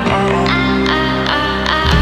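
Background music: a repeating melody of struck notes at about two to three a second over held low notes.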